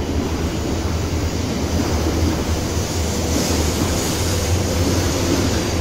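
Shinkansen train running along the platform: a steady low rumble under a rushing hiss, which brightens from about three seconds in.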